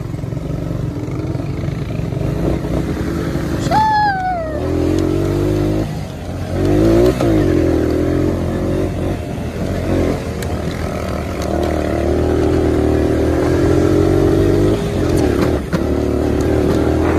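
Four-wheeler (ATV) engine running under way, its pitch rising and falling as the throttle is opened and eased off. A short high falling squeal comes about four seconds in.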